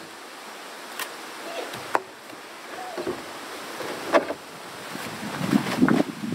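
Plastic tarp rustling and crinkling as it is pulled off and carried, with a few sharp knocks; the handling gets louder near the end.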